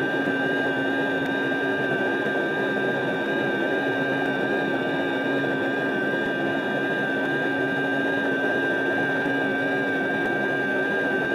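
Pratt & Whitney J57 turbojet running steadily on a test stand after start-up: a loud rushing noise with a steady high-pitched whine and several fixed tones, holding an even speed.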